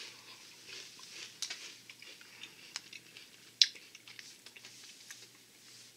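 Chewing a mouthful of crunchy aloo bhujia, fried potato-and-chickpea noodles: irregular small crunches, with one sharper crack a little past halfway.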